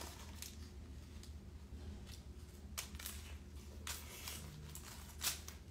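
Hard-shell taco crunching as it is bitten and chewed: a handful of short, sharp crunches spread through, the strongest near the end, over a low steady hum.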